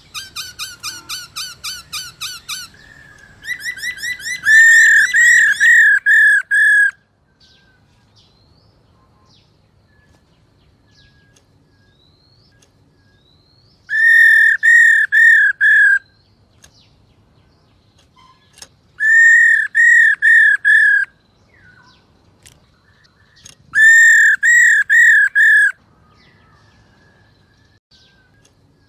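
Female black-throated laughingthrush giving its 'ro' call, the call bird keepers use to rouse males into song. A quick run of short, fast-repeated notes for about three seconds leads into a louder string of notes. After a pause of several seconds come three bursts of five or six quick notes, each a few seconds apart.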